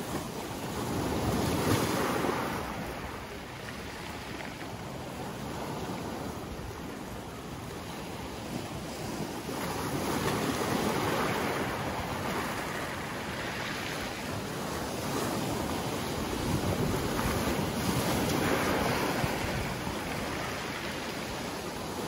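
Sea surf breaking around boulders and washing up a pebble beach, swelling and ebbing wave after wave, loudest about two seconds in.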